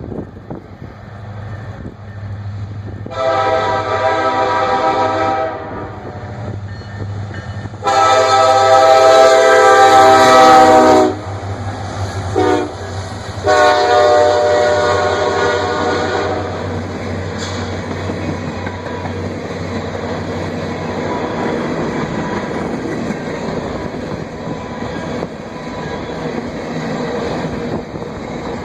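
Diesel freight locomotive's air horn sounding the grade-crossing signal (two long blasts, a short one, then a long one), with the loud second blast, over the low engine hum. After the horn, the train rolls by with a steady rush and clatter of wheels on rail.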